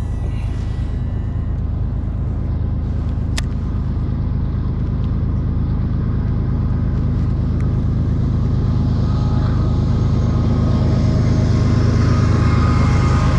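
An engine running steadily at a constant speed, growing slightly louder toward the end.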